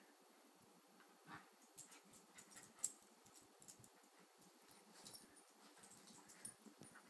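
Faint scuffling and scattered clicks from two small dogs playing with a rope toy on carpet, with one sharper click near the middle.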